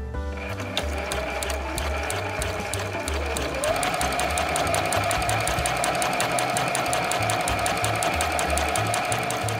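Electric home sewing machine running fast on a long straight stitch for gathering, the needle clicking rapidly and evenly. Its motor whine rises in pitch about three and a half seconds in as it speeds up, then holds steady.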